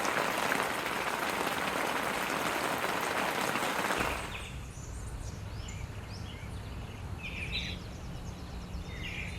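A crowd applauding for about four seconds, then an abrupt change to birds chirping over a low steady hum.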